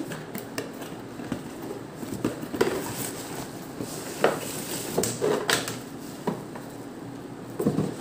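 Handling of a cardboard box and bubble wrap: the box lid sliding off and plastic bubble wrap rustling and crinkling in irregular bursts, with small clicks and scrapes, loudest a little past the middle.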